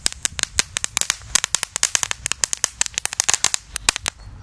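Flashcracker crackling firecracker going off on the ground: a rapid, irregular string of sharp pops that stops abruptly about four seconds in.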